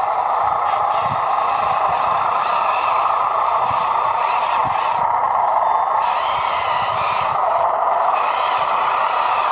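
Radio-controlled dump truck's small electric motor and gearbox running steadily, with light clattering underneath.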